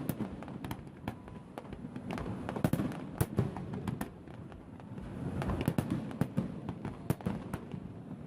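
Aerial fireworks bursting in rapid succession, a dense barrage of sharp bangs and cracks that the spectator takes for the display's finale.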